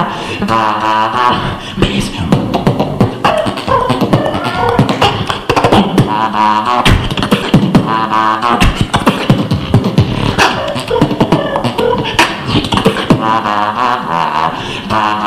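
Solo beatboxing into a cupped handheld microphone: sharp kick and snare clicks in a fast groove, with short hummed, pitched bass-and-melody phrases returning every few seconds.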